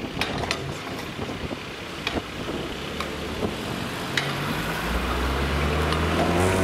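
Cars driving over a road level crossing: tyre noise with sharp clacks as wheels cross the rails. From about five seconds in, an approaching car engine grows louder, rising in pitch as it accelerates.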